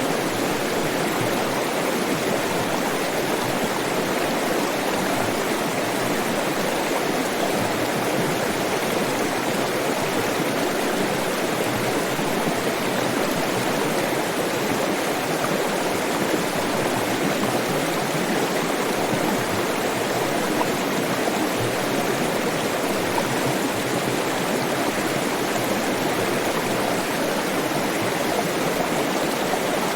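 Water flowing steadily over rocks in a stream, a constant rushing and babbling with no breaks.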